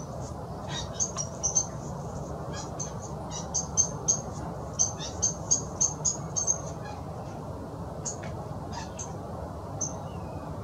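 Small birds chirping: many short, high notes in quick runs, busiest in the middle, over a steady low background rumble.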